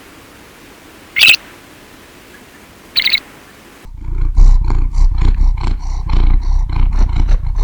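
Two short duck quacks, then, about four seconds in, the loud, deep growl of a large animal, pulsing about four times a second.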